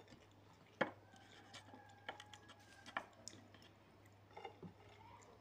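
Faint eating sounds from a meal eaten with the hands: quiet chewing and a few small sharp clicks, the strongest about a second in and about three seconds in.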